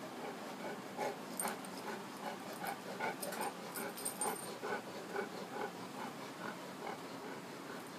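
Greyhound whimpering in a run of short, soft whines, about two a second, while being pestered, with a few light clicks and rustles among them.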